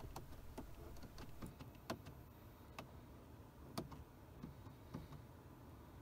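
Faint, irregular clicks and ticks, about a dozen spread unevenly over several seconds, over a low steady hum.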